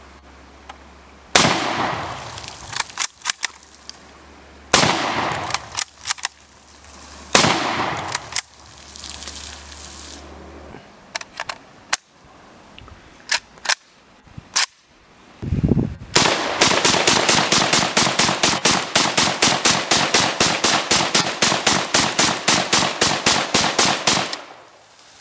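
Mosin-Nagant bolt-action rifle fired three times, a few seconds apart, each shot a sharp crack with a trailing rumble, and the bolt clicks as it is worked between shots. After some metallic clicks of an AKM being loaded, the AKM fires a long, fast, even string of shots lasting about eight seconds.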